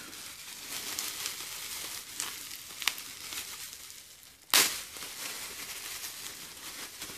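Plastic bubble wrap crinkling and crackling as it is unwrapped by hand, with scattered small clicks and one louder, sharp crackle about four and a half seconds in.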